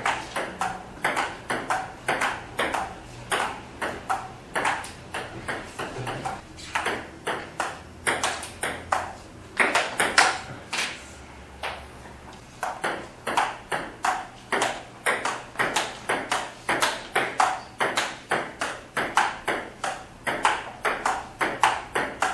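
Table tennis rally: a plastic ball clicking off the paddles and the table in a quick, steady rhythm, with a short pause about eleven seconds in before the clicking resumes.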